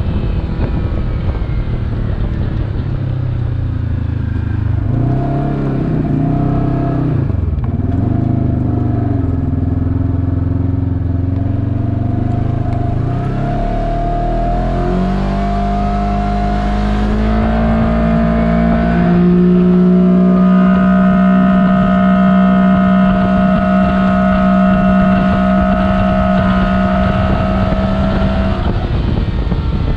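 Kawasaki side-by-side engine running at road speed, its revs wavering in the first half, then climbing for several seconds and holding steady, and easing off near the end.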